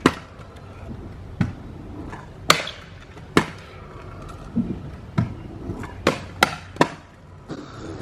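Stunt scooters landing and knocking on concrete: a run of about eight sharp, irregular clacks and slaps of decks and wheels hitting the ground, bunched closer together about six to seven seconds in.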